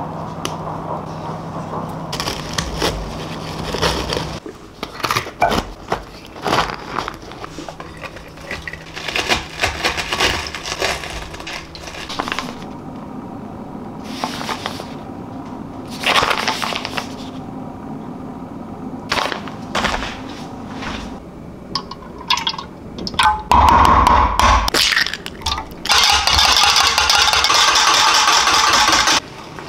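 Kitchen handling sounds: plastic packaging crinkling, with clicks and taps. Near the end, a wire whisk beats batter in a small bowl steadily for about three seconds, then stops abruptly.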